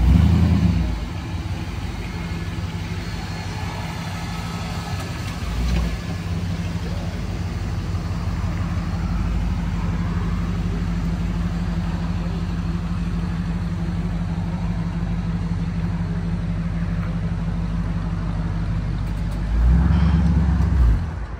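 A 1950 Ford coupe's engine running at a low, steady idle as the car creeps along, with a short rev in the first second and another just before the end. The engine then stops.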